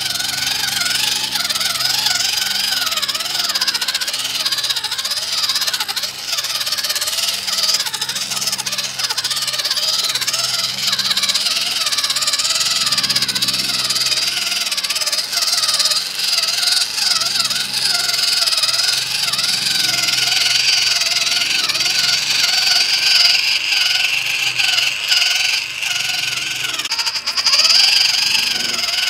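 Small RC crawler's electric motor and gearbox whining, the pitch wavering up and down as the throttle changes, over a steady high-pitched hiss.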